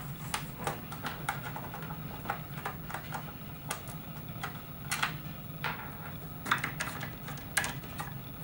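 Irregular clicks and light knocks as hard drives and their metal and plastic mounting parts are handled and pulled from a computer case's drive bays, over a low steady hum.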